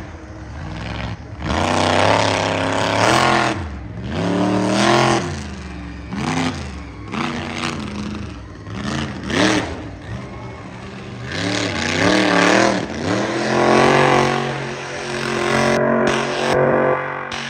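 Monster truck engine revving hard over and over, the pitch climbing and dropping every second or two as the driver works the throttle on the dirt track, then holding a steadier note near the end.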